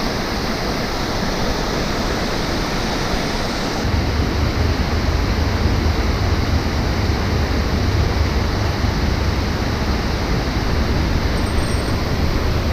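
Creek water rushing over a shallow riffle, a steady hiss. About four seconds in, a low rumble joins it and stays.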